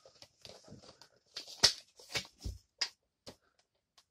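A clear plastic blister pack on an action-figure card crinkling and clicking as it is handled and turned over: a run of irregular crackles and clicks, the sharpest about one and a half seconds in, with a dull knock soon after, dying away after about three seconds.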